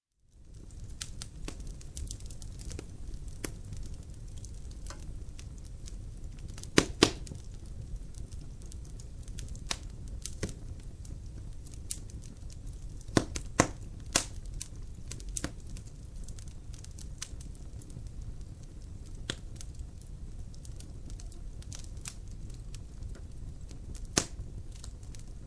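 Wood fire crackling in a fireplace: a steady low rumble of flames with scattered sharp pops and snaps. The sound fades in within the first second, and a few louder pops come in close pairs about a quarter and half of the way through, with another near the end.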